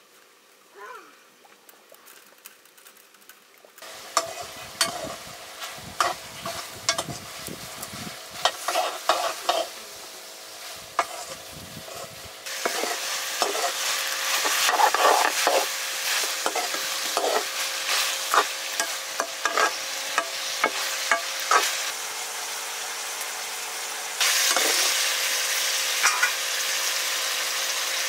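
Food sizzling as it fries in a pan, stirred with a spoon that scrapes and knocks against the pan. The sizzle starts about four seconds in and grows louder about halfway through and again near the end.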